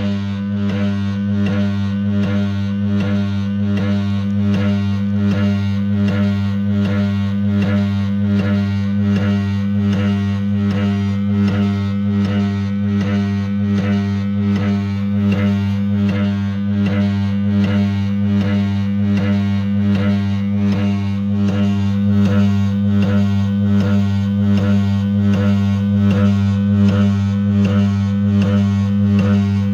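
Music played back through the Lyrec SV2 portable cutting lathe/turntable, sitting on a strong steady low hum, with faint regular clicks throughout.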